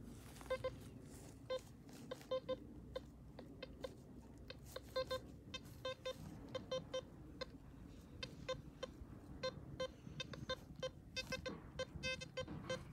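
Metal detector beeping in short, irregular bursts at one pitch, sometimes in quick runs, as it is swept over a target: it is signalling shallow surface metal.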